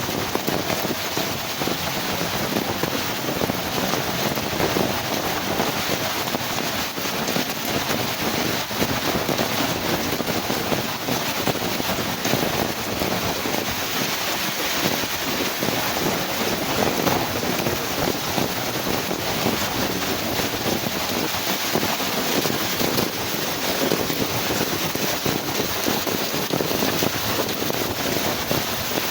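Heavy rain pouring down in a strong windstorm: a steady, dense hiss of rainfall with wind blowing over it.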